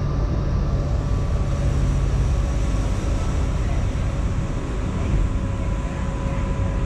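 Electric locomotive running at a station platform: a steady two-pitch whine over a continuous low rumble.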